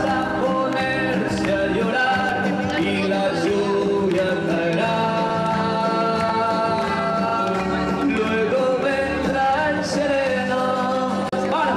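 A song sung over musical accompaniment, the voice holding long, drawn-out notes at a steady level, with a brief drop in loudness near the end.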